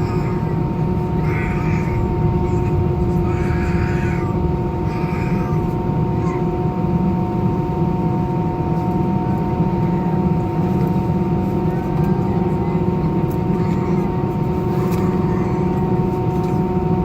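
Cabin noise inside an Airbus A319 with its jet engines running steadily: a deep rumble under a few constant whining tones, holding even pitch with no spool-up.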